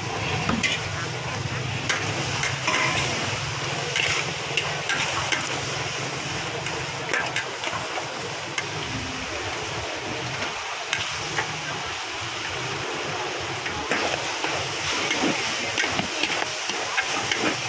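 Wild boar stir-fry sizzling in a large metal wok while two metal spatulas scrape and clatter against the pan, tossing the meat. A steady frying hiss runs under irregular scrapes and knocks.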